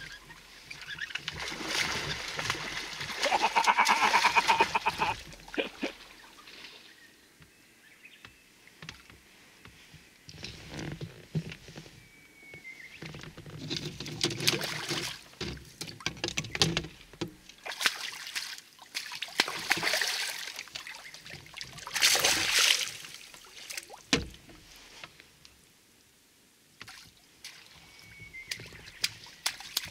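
A hooked carp thrashing at the water's surface while being played on a fishing rod, splashing in irregular bursts that are loudest in the first few seconds. The carp is foul-hooked in the body rather than in the mouth.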